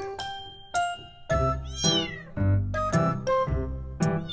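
A kitten meowing over and over in short, high, plaintive cries. It is newly adopted and not yet settled in its new home. Background music plays underneath.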